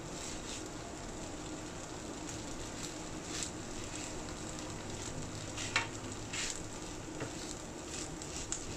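Chicken and capsicum filling in milk cooking in a nonstick frying pan, sizzling steadily while a silicone spatula stirs and scrapes through it, with a few sharper scrapes past the middle. The milk is cooking down as the filling thickens.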